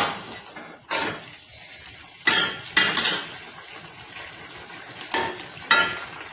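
A cooking spoon scraping and knocking against a kadai as small mola fish are stirred, in five sharp strokes, two of them close together each time, over a low steady frying hiss.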